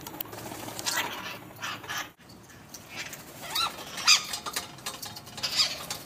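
Red-masked parakeets calling at a feeder: a run of short, shrill calls that sweep up and down in pitch, strongest about four seconds in.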